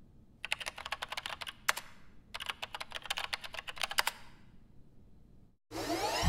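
Computer keyboard typing in two quick runs of key clicks, the second starting about two and a half seconds in. Near the end a loud rising swoosh begins.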